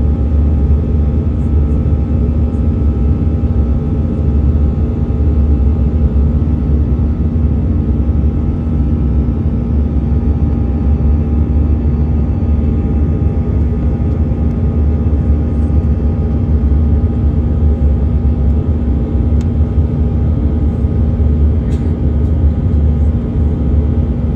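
Jet airliner cabin noise during the climb: a loud, steady low rumble of airflow and engines, with an even hum from the wing-mounted turbofan engines running at climb power.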